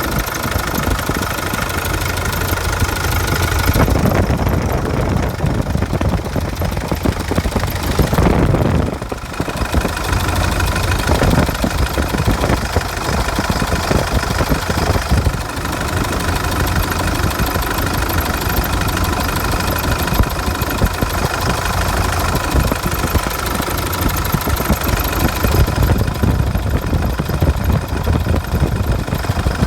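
2005 CRD diesel engine running steadily, recorded to show a noise still present after its harmonic balancer was replaced. The sound swells briefly about eight seconds in, then settles back to a steady run.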